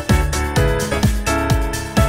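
Electronic background music with a steady kick-drum beat, about two beats a second, under sustained synth notes and hi-hats.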